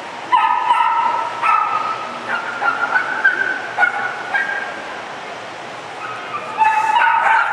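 A small dog barking in runs of high-pitched yips, falling quiet for about two seconds near the end, then barking again.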